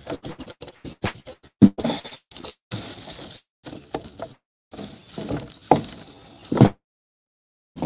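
Footsteps crunching through dry leaves and sticks on the forest floor, a quick run of crackles and snaps. The audio drops out completely a few times, the longest for about a second near the end.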